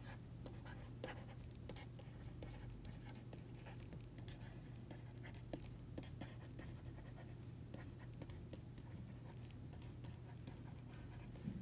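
Faint light tapping and scratching of a stylus on a tablet screen while handwriting, scattered irregular ticks over a steady low electrical hum.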